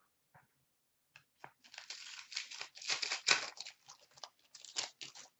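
A trading card pack's foil wrapper being torn open and crinkled by hand, with a couple of light clicks a little after a second in, then about three and a half seconds of crackling.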